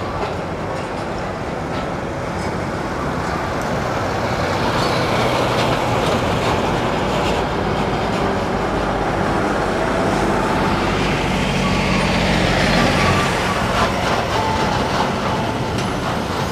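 Road vehicle noise: a steady rumble of engines and tyres, with a heavier engine note growing louder around ten to thirteen seconds in.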